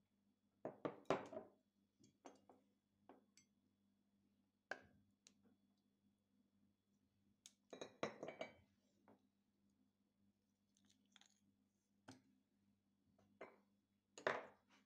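Faint, scattered clinks and knocks of a glass food-chopper bowl and kitchen dishes being handled, in a few short clusters, over a low steady hum.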